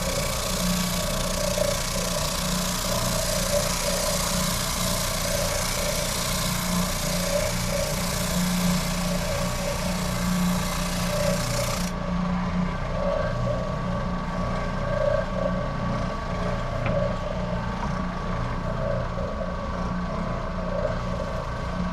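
Electric power-tool motor running steadily with a constant hum; about halfway through, the hiss at the top of the sound drops away suddenly while the motor sound carries on.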